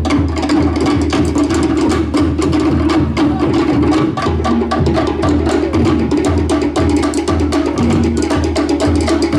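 Live Cook Islands drum music: fast, even strokes on wooden slit drums with deeper drum beats, over a held low tone.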